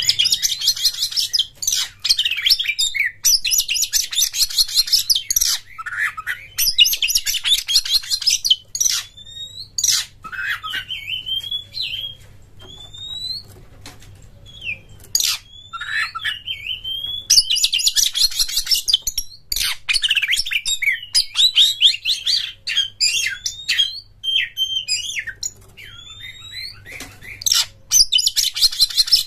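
Oriental magpie-robin (kacer) singing: fast, scratchy chattering runs alternate with separate rising whistled notes and slurred phrases, over a faint steady low hum.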